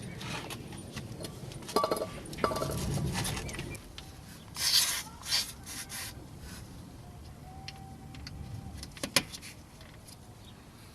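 Hands working on a rear disc brake caliper: scattered light clicks, taps and rubbing of small metal and plastic parts as the caliper guide-bolt caps are pressed on, with a sharp click near the end.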